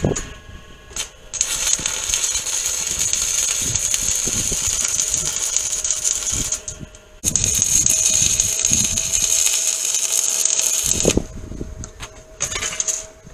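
Angle grinder grinding steel in two runs of several seconds each, with a short break between them.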